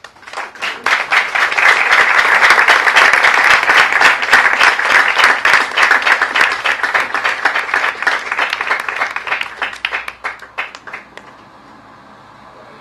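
Audience applauding: the clapping rises quickly at the start, holds, then thins to a few last scattered claps and stops about eleven seconds in.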